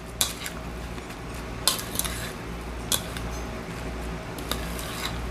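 A utensil scraping and clinking against a ceramic mixing bowl as coleslaw is stirred and tossed, with a few sharp clinks a second or so apart.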